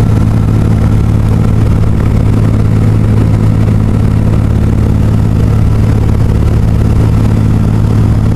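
Aircraft engine droning steadily with a low hum, heard from inside the cabin.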